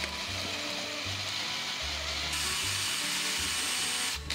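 Electric drill boring into plywood with a twist bit: a steady whir of motor and bit cutting wood, growing brighter about two seconds in as the bit bites deeper. It stops just before the end, then runs again briefly.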